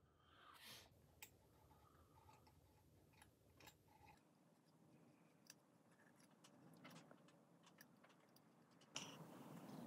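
Near silence, with faint scattered light clicks and ticks of plastic model kit parts being handled and fitted together.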